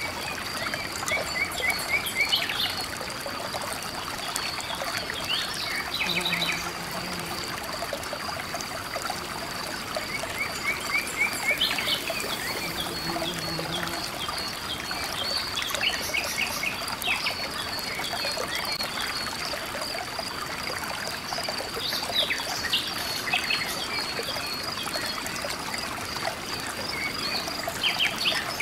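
River water running over rocks in a steady rush, with a continuous high-pitched trill and short bursts of chirping calls every few seconds.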